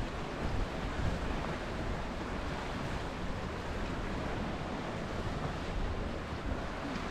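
Sea surf washing on the rocky shore below, a steady even hiss, with low wind rumble on the microphone.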